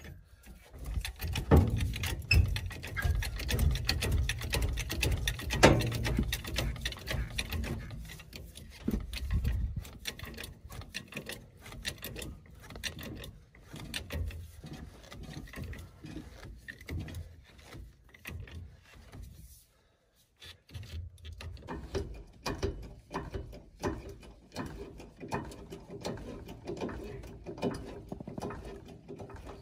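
Hydraulic trolley jack being worked under a mobile home's axle: metal clicks and clanks, with heavier knocks for the first several seconds, a brief stop about twenty seconds in, then a run of regular clicking.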